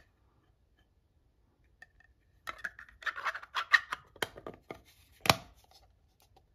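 Small plastic heart-shaped tray box being closed: a couple of seconds of plastic scraping and clicking as the lid is fitted on, then one sharp click about five seconds in.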